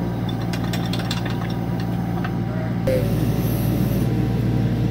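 Kubota U25 mini excavator's engine running steadily as it powers the hydraulic drive head turning a helical pier, with a quick run of sharp clicks in the first two seconds. The sound shifts abruptly about three seconds in.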